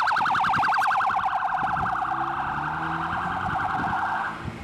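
Emergency vehicle siren sounding a fast up-and-down warble that stops near the end, over the low hum of a vehicle engine.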